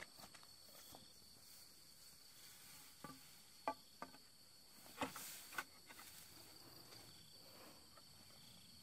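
Faint, steady high-pitched chirring of crickets, with a few soft knocks and rustles in the middle from footsteps in rubber boots through grass and bamboo poles being handled.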